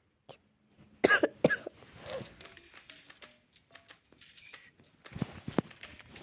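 A person coughing twice in quick succession about a second in: the cough of someone who is a little sick.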